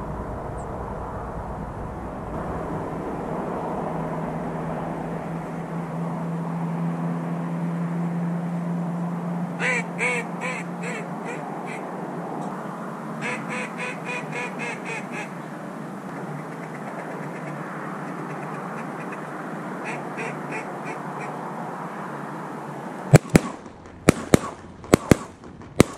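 A duck call blown in three runs of rapid quacks to turn a flock of mallards in. Near the end, several shotgun shots go off in quick succession.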